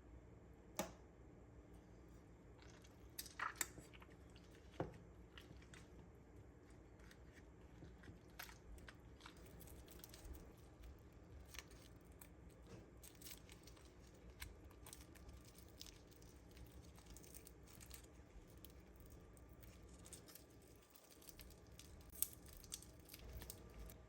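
Near silence with scattered light clicks and taps, a sharper one about a second in, a few more between three and five seconds, and another near the end.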